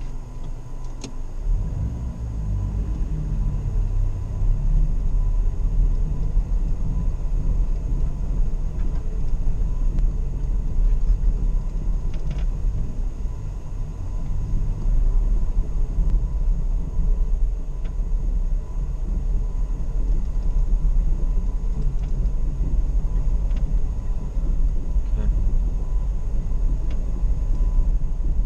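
Off-road vehicle driving across a rough grass field, heard from inside the cab: a steady low engine and tyre rumble that grows louder about two seconds in as it picks up speed, with a few small knocks and rattles.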